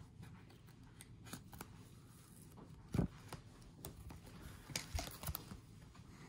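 Soft plastic rustling and clicks as a trading card is slid out of a rigid plastic top loader, with a dull thump about three seconds in and a few crisp crinkles near the end.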